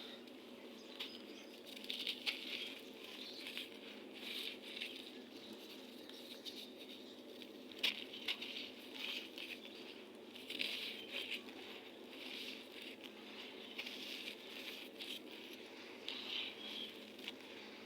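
Dry red sand being crumbled, giving gritty crackling in irregular bursts a second or two apart, with one sharp snap about eight seconds in. A faint steady hum lies underneath.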